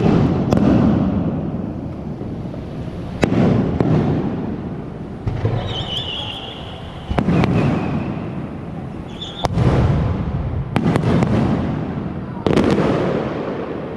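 Aerial fireworks shells bursting overhead: about eight sharp booms, one to three seconds apart, each trailing off in a rumbling echo with fine crackling. A brief high whistle sounds about six seconds in.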